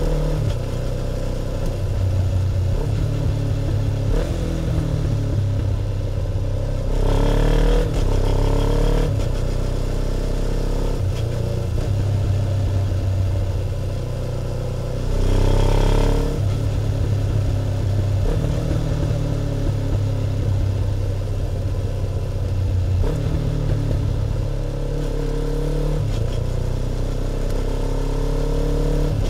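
Kawasaki Ninja 500's carbureted parallel-twin engine, heard close to its twin-carburettor intake and exhaust, running under changing throttle. Twice, about seven and fifteen seconds in, the revs rise and it gets louder as the bike accelerates.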